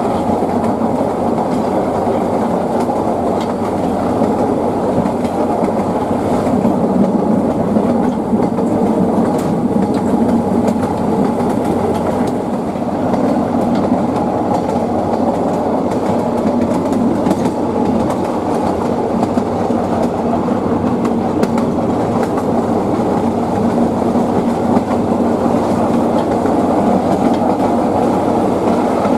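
Narrow-gauge passenger train running along the track: a steady, loud rumble of the coach and wheels on the rails, with occasional faint clicks as the wheels pass over rail joints.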